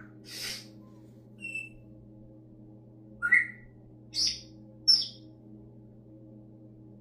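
Pet parrot making a string of short, separate noises: a breathy hiss at the start, a brief high chirp, then three louder squeaky chirps between about three and five seconds in.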